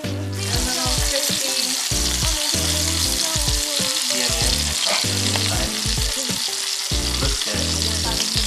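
Beef-and-walnut tteok-galbi patties sizzling in hot oil in a nonstick frying pan. The sizzle comes in suddenly just after the start and stays steady and loud.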